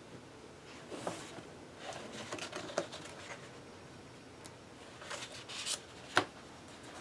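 Paper of a large paperback coloring book rustling as a hand turns a page and smooths it flat, in several short rustles, with one sharp tap near the end.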